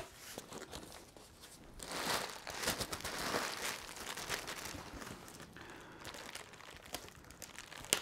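Crumpled packing paper and plastic air-cushion wrap crinkling and rustling as they are lifted out of a cardboard box. It is loudest about two to three and a half seconds in, then softer, with a few small clicks near the end.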